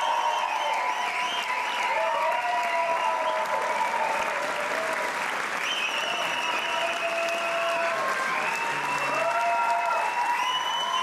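Audience applauding steadily, with some held, wavering tones over the clapping.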